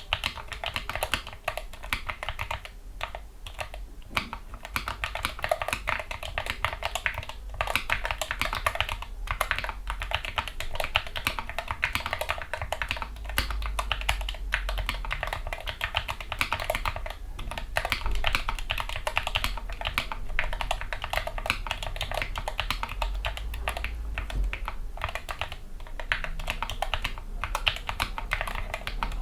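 Continuous fast typing on a Gamakay MK61 mechanical keyboard with lubricated Gateron Yellow optical linear switches and foam dampening: rapid, muted keystroke clacks with a few brief pauses.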